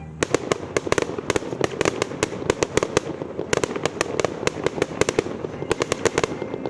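Fireworks going off in a rapid, irregular string of sharp cracks and bangs, starting suddenly just after the start and keeping up without a break.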